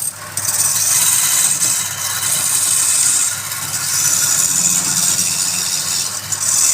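Wood lathe running with a steady low hum while a turning tool cuts the spinning wood in several passes, each a high hiss lasting one to two seconds.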